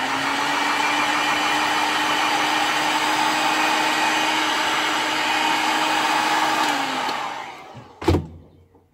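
Electric heat gun blowing hot air onto a lead jig head, heating it for powder coating: a steady rush of air with a low hum. Near seven seconds in it is switched off and the hum sinks as the fan winds down, followed by a short knock.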